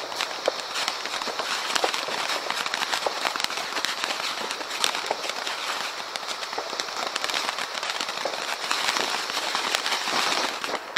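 Weco Monster Batterie firework burning, a spark fountain throwing crackling stars: a dense, rapid crackle of many small pops over a steady hiss, with a brief lull near the end.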